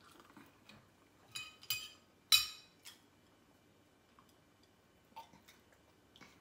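A metal fork clinking against a ceramic plate three times in the first two and a half seconds, the last clink the loudest and ringing, with a fainter tap later on.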